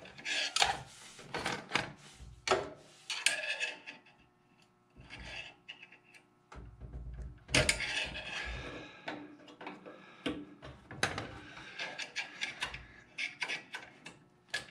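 Metal scraping and clicking of a long screwdriver prying against a cotter pin deep in a Cub Cadet 154 Lo-Boy's frame, bending the pin over. It comes in irregular bursts of scrapes and knocks, with a short pause near the middle.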